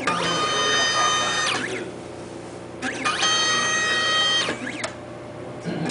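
Stepper motors of a homemade three-axis pick-and-place test machine moving an axis: a whine that rises in pitch, holds steady, then falls. This happens twice, each move lasting about a second and a half, with a pause of about a second between them.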